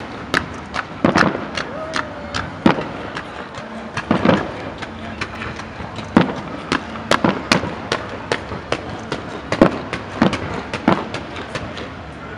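Fireworks display: an irregular run of sharp bangs and pops from bursting shells, two or three a second, over a steady hiss.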